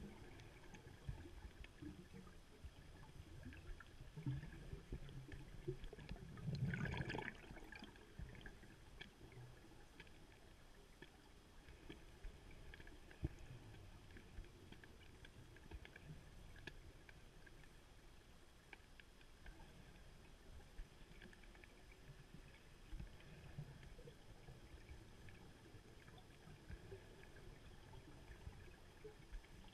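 Faint underwater ambience heard through a camera housing, with scattered small clicks and a low rumble. About seven seconds in there is one burst of bubbling, about a second long: a scuba diver's exhaled breath.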